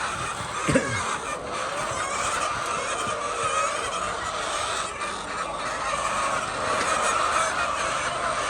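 A large flock of laying hens calling together in a dense, steady din. Just under a second in, one short, louder sound falls in pitch.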